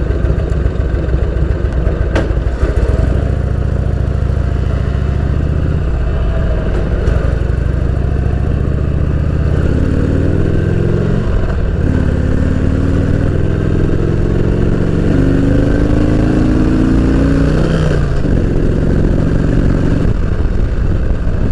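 A 1983 Harley-Davidson FLH80 Shovelhead's 80-cubic-inch V-twin running under way. From about ten seconds in, the engine rises in pitch in a few pulls with short breaks between them as the bike accelerates up through the gears. A single sharp click comes about two seconds in.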